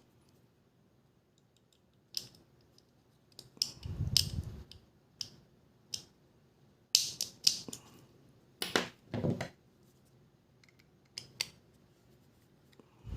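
Small hand tools clicking and scraping on the parts of a GoPro Hero 5 Black camera being taken apart, in scattered short clicks with a longer scraping rustle about four seconds in.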